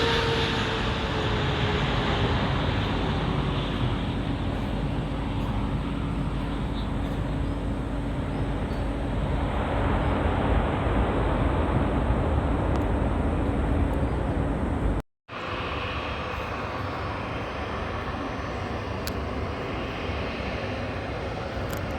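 Jet airliner's engines passing close: a steady rumble with a whine that slowly falls in pitch as the plane goes by. About 15 seconds in it cuts abruptly to a steadier, slightly quieter engine rumble.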